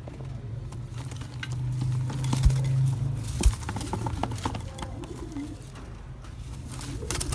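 Domestic pigeons cooing in breeding coops, over a low steady rumble with two sharp knocks about two and a half and three and a half seconds in.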